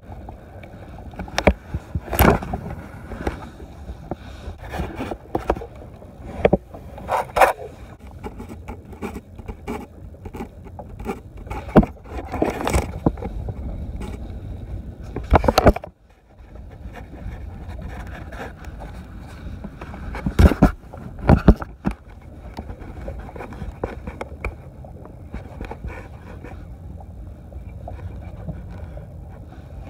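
Irregular knocks, bumps and scrapes of gear being handled aboard a small fibreglass boat, over a steady low background noise. The sound drops out briefly about halfway through.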